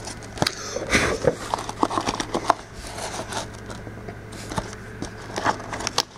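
Packaging being handled as a smartwatch box is opened: irregular rustling, crinkling and small clicks, with no steady sound.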